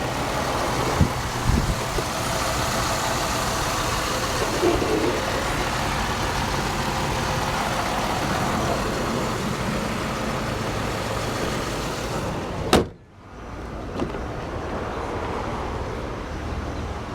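Pontiac G6 GT's 3.5-litre V6 idling steadily under the open hood. About three-quarters of the way through comes a single loud bang, the hood being shut, after which the engine is quieter.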